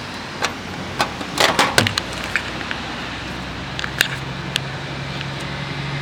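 Microwave oven's running hum cuts off, followed by sharp clicks and a clatter of the door release and latch as the door is opened, loudest a little over a second in, with a couple of single clicks later. A low steady hum comes in about halfway and grows toward the end.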